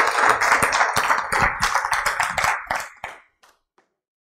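Audience applauding, thinning to a few scattered last claps that die away about three seconds in.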